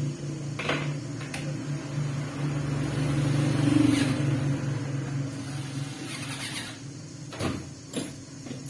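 Steady low motor hum that fades out about six seconds in, with a few sharp clicks and knocks, the loudest two near the end.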